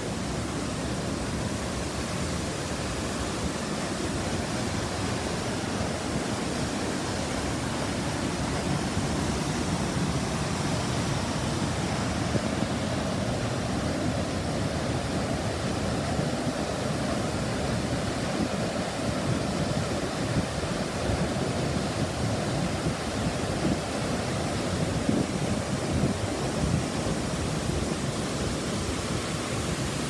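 Steady rushing of a waterfall and the fast white water below it, a constant full noise of falling and churning water that grows a little fuller about ten seconds in.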